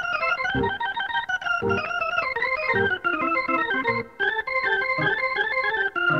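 Slow blues played on organ, with quick runs and chords over a low bass note about once a second, ending on a held organ chord near the end.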